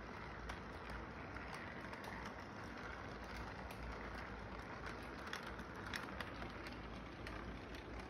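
Electric model train rolling along its track: a steady rumble and whir from the running cars, with scattered light clicks from the wheels on the rails.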